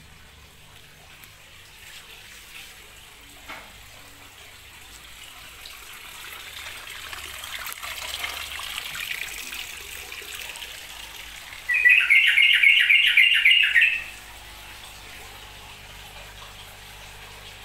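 A bird chirping in a rapid series of about nine high notes, about four a second, for two seconds; before it comes a soft splashing of water.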